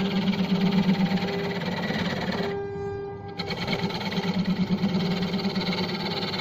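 Belt-driven wood lathe running while a gouge cuts into a large spinning wooden disc, giving a fast rattling chatter over the motor's steady hum. About two and a half seconds in, the cutting noise drops away for about a second, leaving the hum, then starts again.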